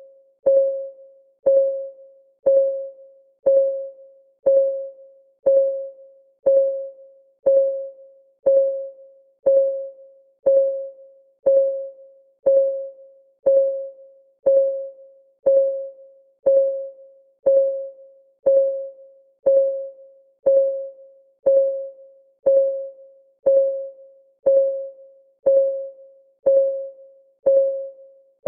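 Clock ticking sound of a countdown timer: one sharp tick each second, steady and even, each with a short ringing tone that fades quickly.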